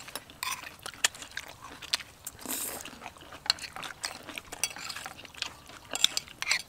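Metal spoons clinking and scraping against ceramic bowls of rice and sauce while people eat, in irregular light clicks.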